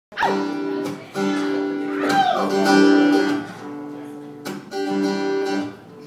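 Acoustic guitar strummed in chords, each chord ringing for about a second before the next strum.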